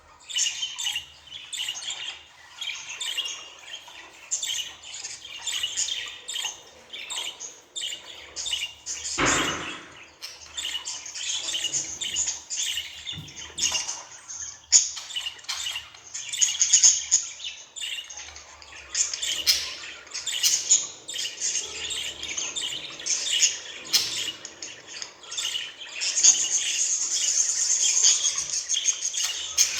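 Budgerigar chattering and warbling: a busy stream of quick, high chirps and twitters, with one louder, harsher call about nine seconds in and a denser, more continuous warble near the end.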